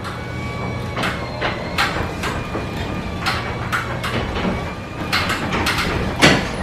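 Overhead sectional garage door closing under its electric opener: a steady motor hum with the rollers clicking and clattering along the steel tracks, and a louder knock near the end.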